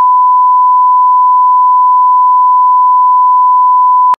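A single steady electronic beep: one pure high tone held at an even, very loud level, cutting off suddenly near the end.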